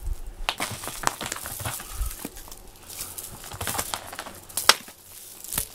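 A string cat-wand toy rustling as it is dragged across a foam play mat, with scattered sharp taps as a cat pounces and bats at it.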